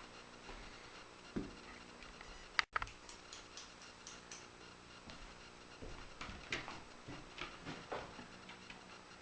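A few faint taps and clicks of small objects being handled and set down, scattered and irregular, the sharpest pair a little under three seconds in, over a faint steady hum.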